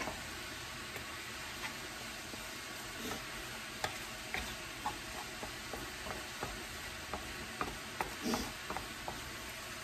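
Chicken and vegetables frying with a steady sizzle in a wok while being stirred, with scattered light scrapes and taps of the spatula against the pan.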